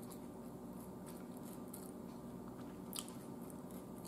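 Faint mouth sounds of a person chewing food with the mouth closed, with soft wet clicks and one slightly louder click about three seconds in.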